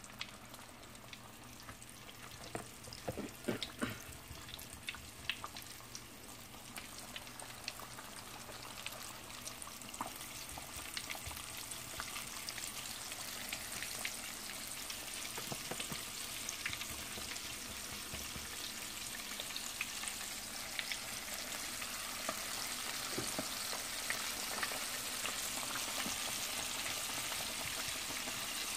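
Flour-coated chicken wings frying in hot oil in a stainless steel pot: a steady sizzle that grows louder as more pieces are lowered in. A few sharp clicks about three to four seconds in.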